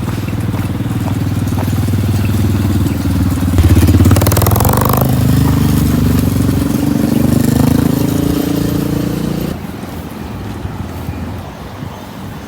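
Motorcycle engine running under way. It speeds up with a rising pitch about four seconds in, holds steady, then drops back to a quieter run about nine and a half seconds in.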